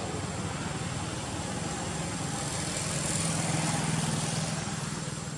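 A motor vehicle's engine running, growing louder about halfway through and then fading toward the end.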